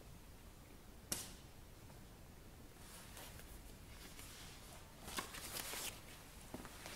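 Quiet room tone with a single sharp click about a second in and a brief rustle around five seconds in.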